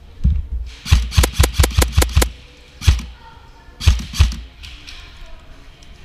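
Airsoft rifle firing: a quick string of about nine shots in just over a second, then a single shot and a pair of shots. Faint background music runs underneath.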